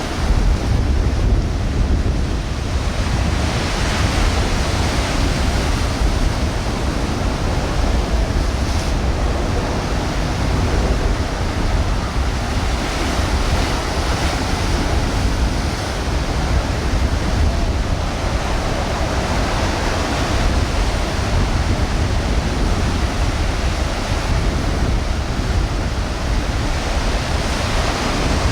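Ocean surf breaking and washing in, swelling every few seconds, with wind rumbling on the microphone.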